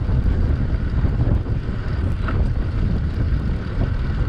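Wind buffeting the microphone: a steady, gusting low rumble with no clear engine tone.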